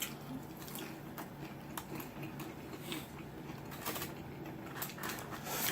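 Faint eating sounds close to the microphone: soft chewing and scattered small mouth and food clicks at an irregular pace, over a low steady room hum.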